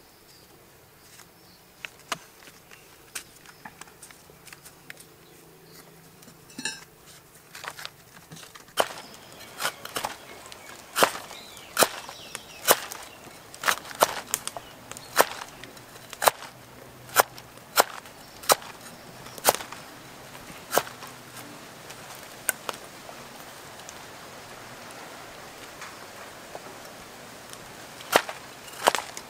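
Knife chopping on a wooden block: sharp knocks, sparse at first, coming about once a second from about nine seconds in, pausing for several seconds, then a few more strokes near the end.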